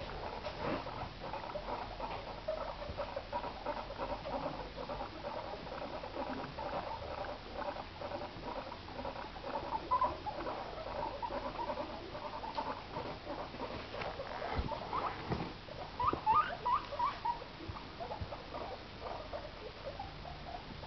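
Guinea pigs making a steady run of short, repeated squeaks and chirps, with a few louder rising squeaks around sixteen seconds in. A couple of soft knocks come a little before that.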